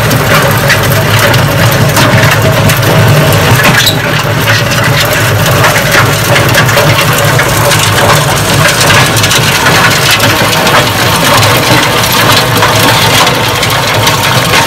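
Tractor-drawn rotary trencher digging through rocky soil. The tractor engine runs steadily under load while the spinning cutter grinds the ground and flings stones and dirt out of its chute, with a constant rattle of small stone impacts.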